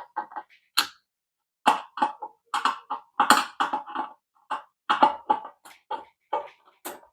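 An irregular run of short clicks and knocks from a screwdriver and the fan's metal mounting parts being handled while screws are tightened down.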